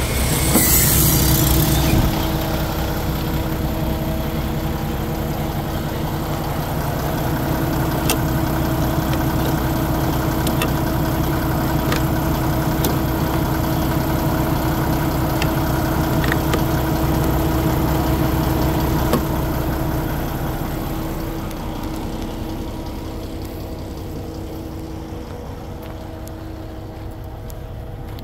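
The Kenworth T680's 12.9-litre turbocharged inline-six diesel idling steadily, with a short burst of hiss in the first two seconds. The idle grows quieter over the last several seconds.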